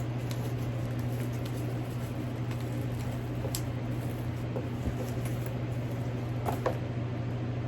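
Steady low hum in the room, with faint scattered ticks and light handling sounds of a handbag being moved and opened. There are a couple of slightly sharper clicks near the end.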